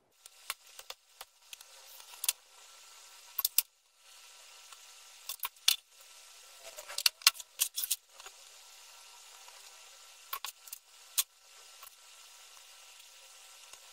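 Scattered light clicks and small rattles of hands handling wires, tools and a carbon-fibre drone frame on a wooden desk, over a faint steady hiss.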